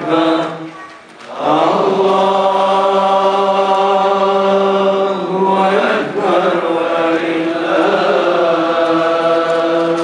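Men chanting an Islamic devotional melody in long, drawn-out held notes, with a pause for breath about a second in.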